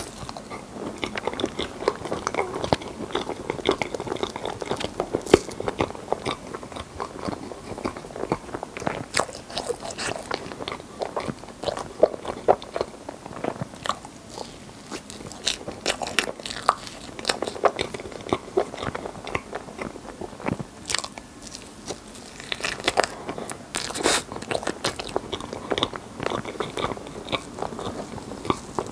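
Close-miked eating of rainbow crepe cake with cream: wet chewing and lip-smacking with many sharp mouth clicks, steady throughout.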